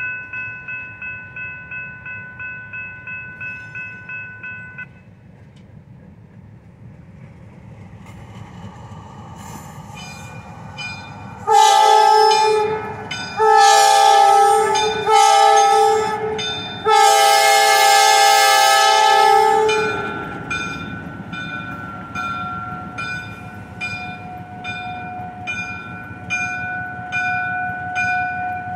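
Grade-crossing signal bells ringing, then MLW RS-18u diesel locomotive 417 sounding its horn in four blasts, the last one the longest, as it rolls up to the crossing. Rhythmic bell ringing and the locomotive's running diesel engine follow as it passes through.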